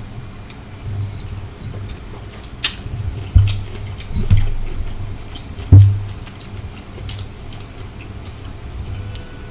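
Close-miked chewing of sautéed shrimp: wet mouth clicks and smacks over a low rumble, with a few sharp knocks, the loudest a little past a third of the way in and just past halfway.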